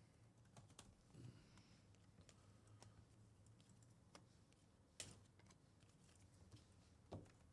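Near silence with faint, scattered light clicks and ticks, a sharper click about five seconds in and another near the end, over a faint low hum.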